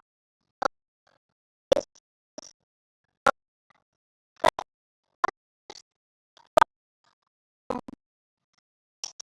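A string of about a dozen short, sharp pops at uneven intervals, with silence between them.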